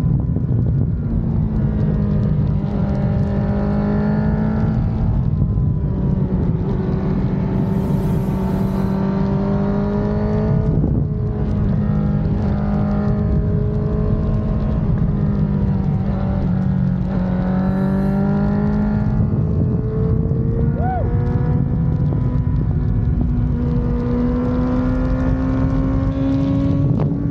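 2019 Honda CBR650R's inline-four engine running through a Mivv GP Pro exhaust under way, its note rising and falling several times as the rider works the throttle and gears through bends, over steady wind rush.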